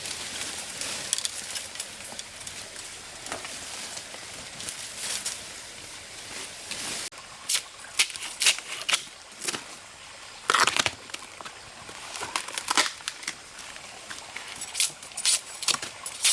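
Rustling and crinkling of something dry being handled, then from about halfway a run of irregular sharp crackles and snaps.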